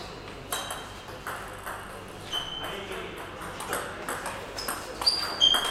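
Table tennis ball bouncing: a run of light, quick clicks, with a few short high squeaks of sports shoes on the court floor.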